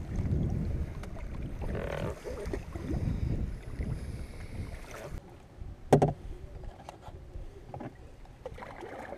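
Canoe paddle strokes pulling through river water, with wind rumbling on the microphone. A single sharp knock about six seconds in.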